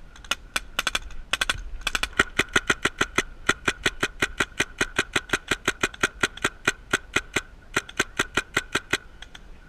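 Paintball marker firing in rapid semi-automatic strings, about six shots a second: a few pops at first, then a long fast burst that stops shortly before the end. A faint steady high hum runs under the shots.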